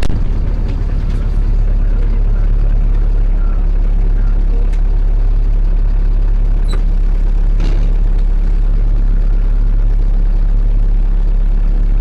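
Zetor 7011 tractor's four-cylinder diesel engine idling steadily, heard from inside the cab, with a few light clicks and knocks.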